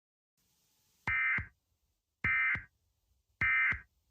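Emergency Alert System end-of-message data signal: three identical short bursts of warbling SAME digital tones, each about half a second long and a little over a second apart, with a click at the start and end of each burst. The bursts mark the end of the alert broadcast.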